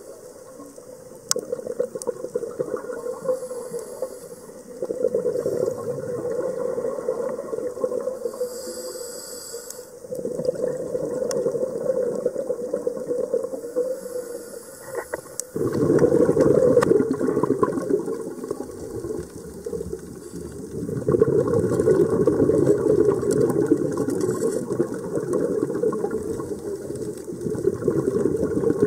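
Scuba diver breathing through a regulator, heard underwater through the camera housing: long gurgling rushes of exhaled bubbles, a few seconds each, alternating with quieter stretches of inhalation, the loudest rushes about halfway through and from about two-thirds in.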